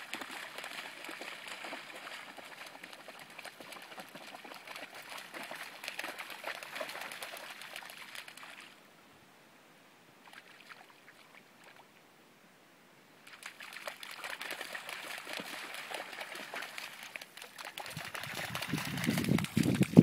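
Flat-coated retriever running through shallow water, its legs splashing steadily. The splashing stops for about four seconds near the middle while the dog stands still, then starts again and gets louder toward the end as it bounds through the shallows.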